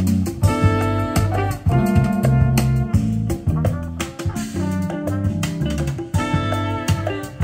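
Jazz with horns and drums played back through a Rogers LS3/5A bookshelf loudspeaker.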